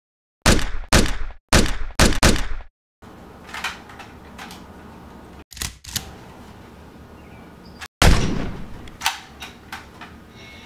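Gunshot sound effects: five loud shots in quick succession, cut off abruptly. A few quieter knocks follow, then another loud shot about eight seconds in and two fainter ones after it.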